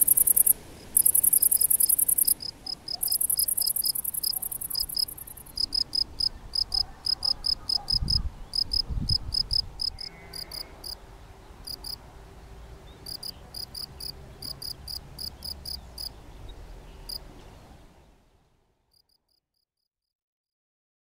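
A male great green bush-cricket (Tettigonia viridissima) stridulates with its wings in a loud, very high continuous buzz broken by short pauses. It gives way after about five seconds to a male European field cricket (Gryllus campestris) chirping in a steady run of short, clear chirps. All of this is their calling song to attract females, and the sound fades out near the end.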